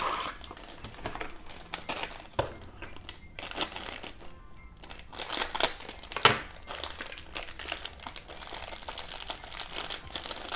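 A small cardboard box being opened, then a clear plastic bag crinkling and rustling in the hands as it is handled and pulled open, in irregular crackly bursts.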